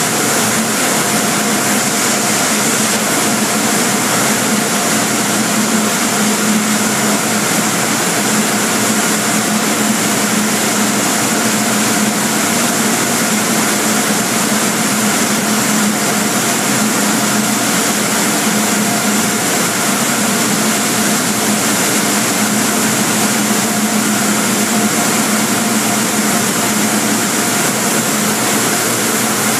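Tunnel car wash air-dryer blowers running at the exit: a loud, steady rush of blown air with a constant hum underneath.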